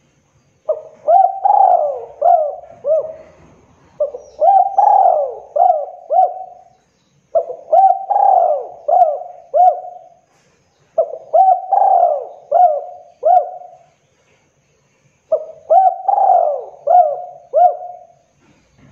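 Spotted dove (tekukur) cooing: five phrases, each a quick run of several arching coos, a second or so apart.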